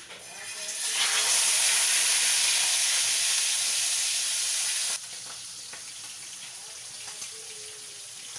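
Marinated pork steaks sizzling as they are laid into smoking-hot cooking oil in a frying pan. The sizzle swells over the first second and holds loud, then drops abruptly to a quieter, steady sizzle about five seconds in.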